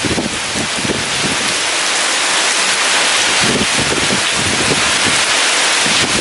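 Heavy rain pouring steadily as a dense hiss, with strong wind gusting irregularly and buffeting the microphone.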